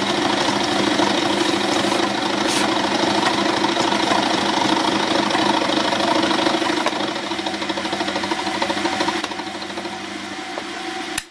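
Milling machine running with its end mill cutting solid cast iron: a steady, loud rasping chatter over the motor's hum as the cylinder block is fed across the cutter. It is the final of a series of small facet cuts that step a radius onto the side of the cylinder. The cut eases near the end, then the sound stops abruptly.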